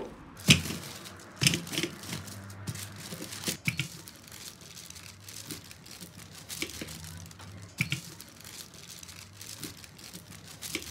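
Baking paper crinkling and rustling as a rolling pin is pressed and rolled over it, flattening still-hot hazelnut brittle underneath. The crackling is irregular, with a few sharper clicks, the strongest about half a second in.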